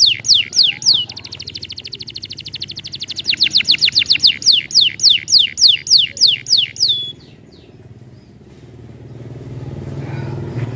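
Canary singing: quick runs of falling whistled notes, about five a second, broken by a fast buzzing trill. The song stops about seven seconds in. A low steady hum runs underneath and grows louder near the end.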